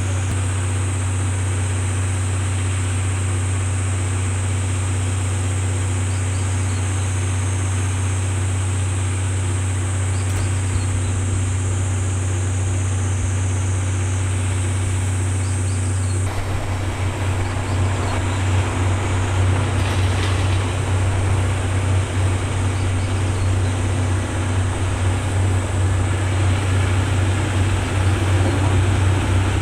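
Diesel generator engine of a 12 series passenger coach running with a steady low hum; about halfway through the sound changes, growing louder and rougher. The generator was heard running abnormally that day.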